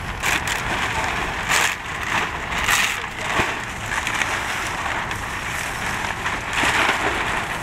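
A large black plastic sheet rustling and crinkling in bursts as it is pulled off a sculpture, over a low rumble of wind on the microphone.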